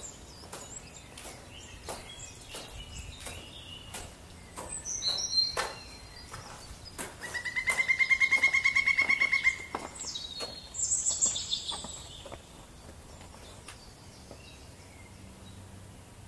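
Songbirds calling in woodland, with a loud, rapid trill lasting over two seconds about seven seconds in and short whistled calls before and after it. A few clicks and footsteps on snow in the first few seconds.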